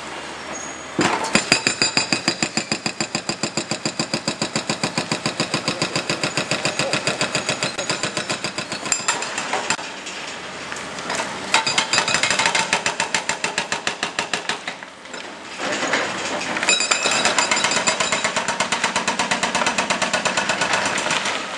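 Excavator-mounted hydraulic breaker hammering the masonry deck of a stone arch bridge, a rapid steady run of blows that starts about a second in. The blows stop briefly about halfway through and again about three quarters through, then carry on.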